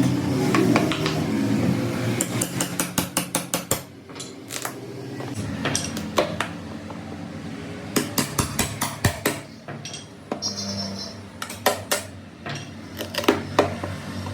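Metal tools striking and clattering, in quick runs of sharp taps with pauses between.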